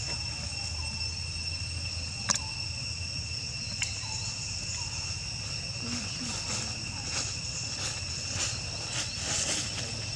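Insect chorus: a steady high-pitched buzz at two pitches. A sharp click cuts through it a little over two seconds in, and a fainter one comes near four seconds.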